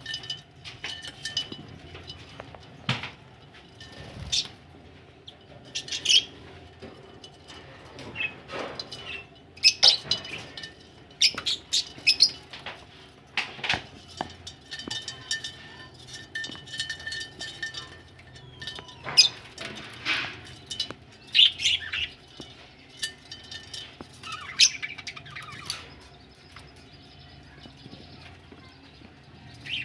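Budgerigars in a cage chirping in short bursts and fluttering their wings, with many sharp clicks mixed in.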